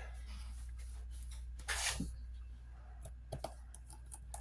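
Small tri-wing screws and a screwdriver being handled while a phone is reassembled: a brief rustle about two seconds in, then a few light clicks and taps.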